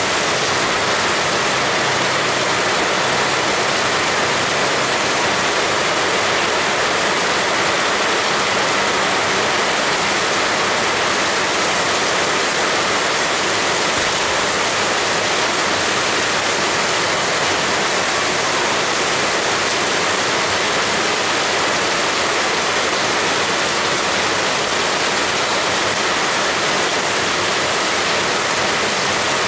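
Heavy rain falling steadily, a dense, even hiss with no breaks or single drops standing out.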